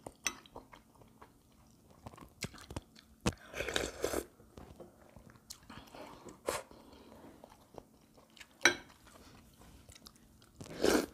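Close-up eating sounds: chewing and smacking of a mouthful of food, broken by short clicks of chopsticks against the dishes and a few louder wet mouth noises, the loudest near the end as she takes up a bite of seasoned greens.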